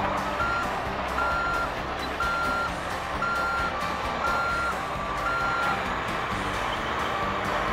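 Forklift reversing alarm beeping about once a second, six beeps, over a steady engine hum.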